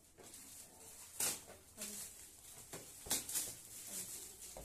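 Gift wrapping paper rustling and crinkling in a few short bursts as it is pulled open, the loudest about a second in and again about three seconds in.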